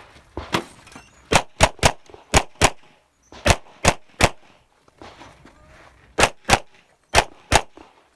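Glock 35 pistol in .40 S&W firing rapid pairs of shots, about a dozen in all, with short pauses between groups.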